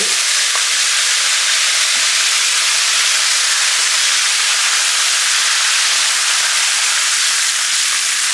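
Vinegar sizzling steadily in a pan of hot chili oil with fried dried chilies, the oil still hot after the heat is switched off.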